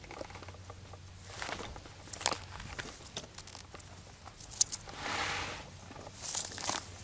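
Footsteps and rustling on dry ground, with scattered short crunches and a longer, louder scuff about five seconds in.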